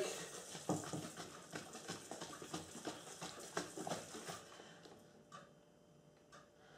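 A plastic fizzy-drink bottle of juice and yeast being shaken by hand, the liquid sloshing in rapid, irregular strokes to mix in the yeast. The shaking dies away after about four and a half seconds.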